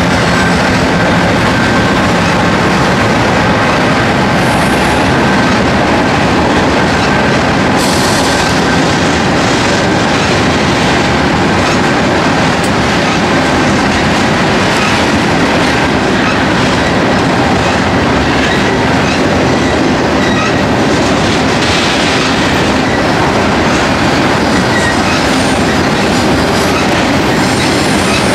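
Freight cars rolling past close by: a grain train's covered hoppers, with steady wheel-on-rail rumble and clicking over rail joints, and some high wheel squeal on the curve.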